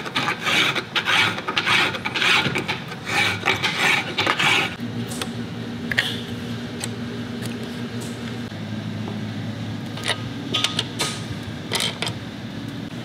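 Hand file rasping back and forth across a metal intake filter adapter held in a bench vise, about two to three strokes a second, slotting the adapter so it fits. After about five seconds the filing stops, leaving a steady low hum and a few light clicks of parts being handled.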